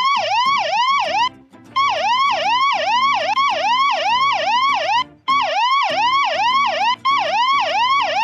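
Ambulance siren in a fast yelp, each wail rising quickly and then dropping back, about three a second. It breaks off briefly about a second in and again about five seconds in, then starts again.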